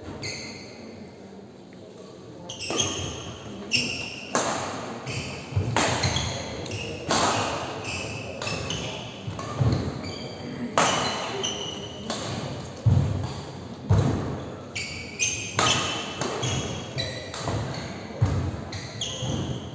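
Badminton rally: rackets striking the shuttlecock with sharp cracks about once a second, back and forth, each ringing briefly in the hall. The rally starts about two and a half seconds in.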